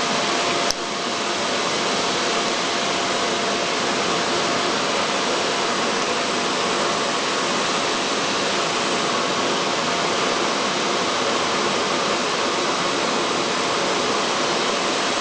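Handheld hair dryer blowing steadily, a faint steady whine over the rush of air, with a brief click about a second in.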